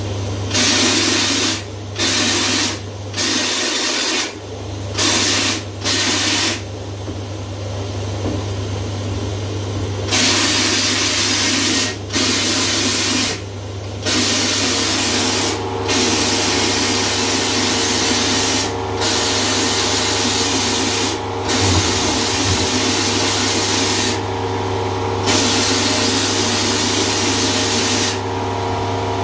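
Homebuilt vapour blaster's nozzle hissing as it sprays slurry onto the G-clamp's zinc-plated thumb screw, switched on and off many times in bursts from under a second to several seconds long, over a steady low hum. This is a quick, light pass to shine up the zinc plating. About halfway through a steady whine joins in.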